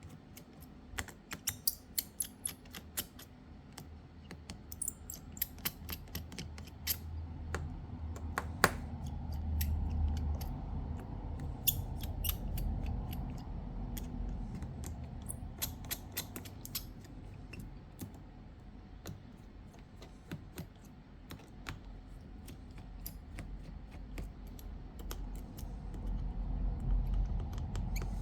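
Irregular sharp clicks and taps of small hand tools on a smartphone's opened frame and its tiny screws, coming in clusters, over a low hum.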